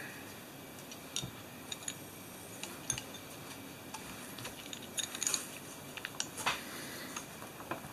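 Scattered light clicks and clinks of small metal parts being handled by hand: the body and fittings of a Mercedes self-levelling suspension valve being turned over and fitted together during reassembly, with a part pressed in against a tight O-ring.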